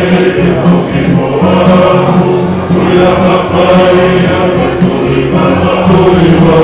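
A group of men singing together in harmony, loud and close, in the manner of a Tongan kava-circle song, with notes held long and no pauses.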